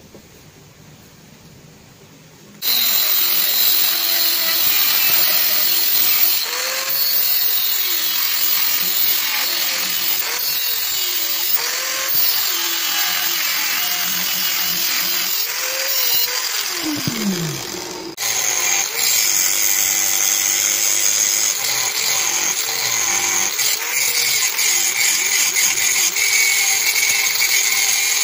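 Angle grinder with a cut-off disc cutting through a bar of old spring steel, its pitch wavering as the disc is pushed into the cut. It starts about two and a half seconds in, spins down with a falling whine near the middle, then starts again and keeps cutting.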